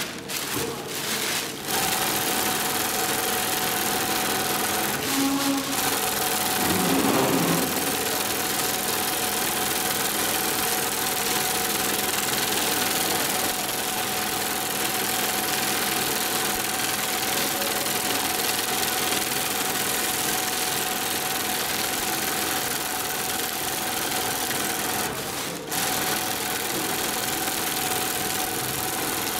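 Long-arm zigzag industrial sewing machine stitching thin sail cloth. It starts up about two seconds in and runs steadily with a constant whine, pausing briefly about five seconds in and again near the end.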